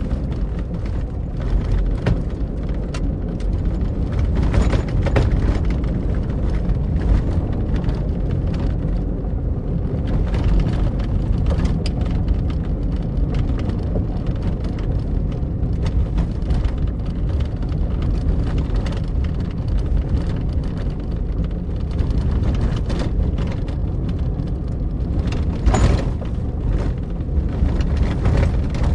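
Car driving on a sandy, potholed road heard from inside the trunk: a steady low road rumble with scattered knocks and rattles as the wheels hit holes, with a louder jolt about 26 seconds in.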